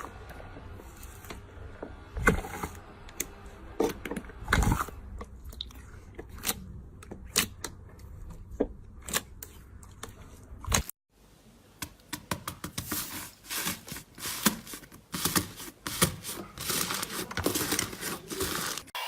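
Slime being squeezed and pressed by hand, giving irregular sticky crackles and pops. About eleven seconds in the sound cuts out briefly, then a second bout of denser, louder crackling follows.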